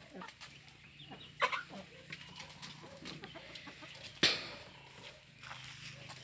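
Chickens clucking softly now and then, with one sharp tap about four seconds in.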